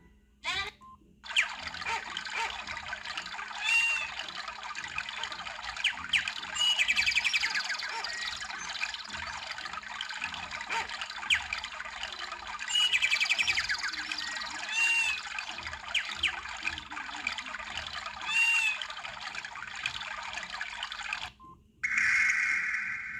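A nature-sound ringtone from a Samsung SGH-D500C, played through the phone's small speaker: birdsong chirps and trills over a steady rush of running water, with no bass. It starts about a second in and cuts off suddenly near the end.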